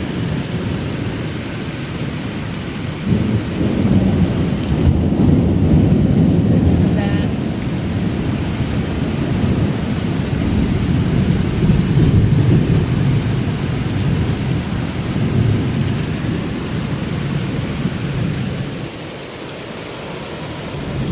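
Thunder rolling in long, continuous rumbles over steady rain: it swells about three seconds in and again around twelve seconds, then eases shortly before the end.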